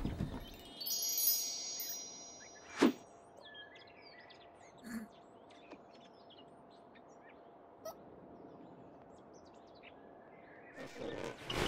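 A chime of several high ringing tones about a second in, then a single sharp knock near three seconds, followed by faint scattered bird chirps.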